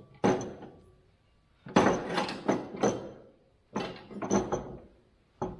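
Metal parts of a mower deck clanking and knocking as they are handled, in a series of sharp, ringing hits: one, then a quick run of about four around two seconds in, three more a couple of seconds later, and a last one near the end.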